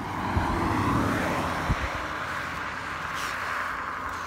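A road vehicle driving past, its tyre noise swelling in the first second and then slowly fading. Two low thumps sound about half a second and nearly two seconds in.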